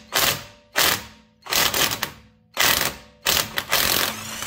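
WORKSITE cordless impact wrench hammering on a car's lug nut in short trigger bursts, about seven in a row, loosening it. It runs steadily for about a second near the end.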